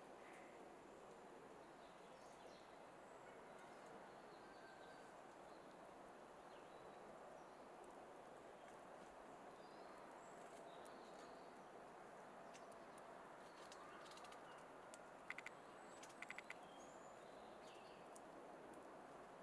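Near silence: faint outdoor ambience with scattered faint bird chirps. A few short, sharp clicks come about three quarters of the way through.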